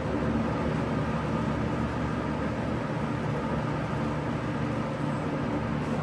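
Vintage 20-inch Kmart K223 box fan running steadily: an even rush of moving air over a low motor hum.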